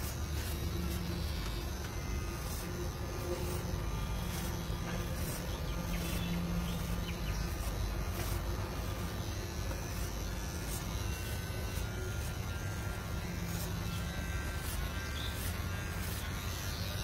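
Electric hair clippers buzzing steadily as they cut short hair at the back of a man's neck.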